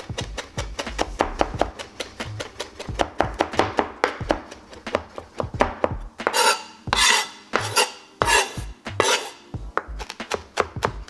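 Chef's knife mincing fresh herbs on a plastic cutting board: quick knocks of the blade on the board, several a second. About six seconds in, the knocks give way to four slower scraping strokes of the blade across the board, and the quick chopping starts again near the end.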